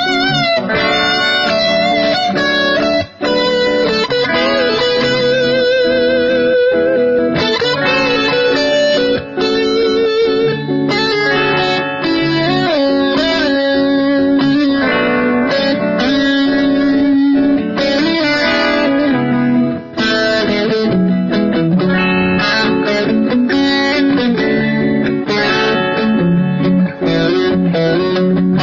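Electric guitar played through a Boss DD-7 digital delay pedal in looper mode: sustained lower notes and chords layered under a single-note lead line with vibrato.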